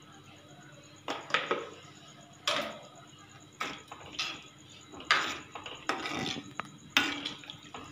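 A spoon stirring stew in a metal pot, knocking and scraping against the pot's side in about eight irregular clanks.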